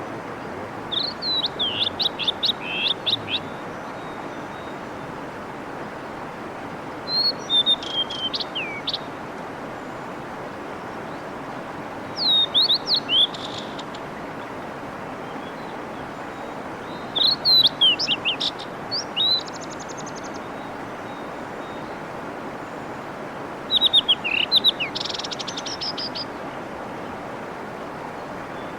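Blue-and-white flycatcher singing five phrases of two to three seconds each, clear high whistles sliding downward and ending in a short buzzy rattle, laid in from a separate recording. A mountain stream rushes steadily underneath.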